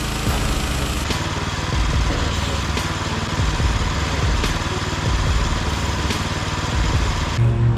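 An engine running steadily, with a few sharp clicks along the way; it cuts off shortly before the end.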